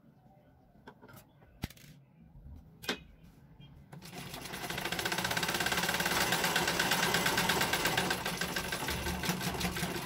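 Sewing machine stitching a hem along fabric. A few light clicks sound in the first three seconds. From about four seconds in the machine runs with a rapid, even clatter that builds up over the first second and then holds steady.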